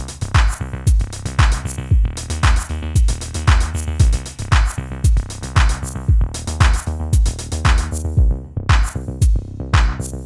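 Electronic music with a drum-machine beat: a low kick about twice a second, sharp snare-like hits between, over sustained pitched synth and bass notes.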